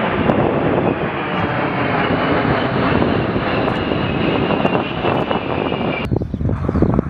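A formation of A-10 Thunderbolt II attack jets passing overhead: the steady rush of their TF34 turbofan engines with a faint high whine. About six seconds in the sound cuts off suddenly to a duller low rumble.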